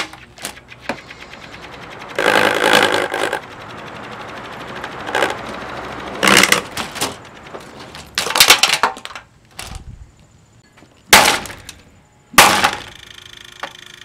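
Galaxy box fan running with its broken plastic blades chopping against a golf club head pushed into the grille: a fast, loud rattling clatter about two seconds in, then a lower rattle. Then a few loud cracks and smashes of breaking plastic, the last near the end.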